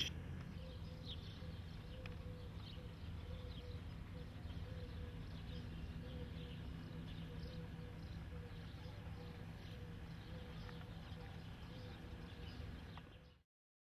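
Faint outdoor ambience: scattered short bird chirps over a low steady hum, fading out near the end.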